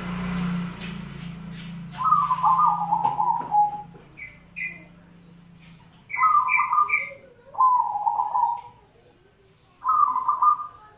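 Zebra dove (perkutut) cooing: about four phrases of rapid, rolling coos with short higher notes mixed in, separated by pauses of a second or so.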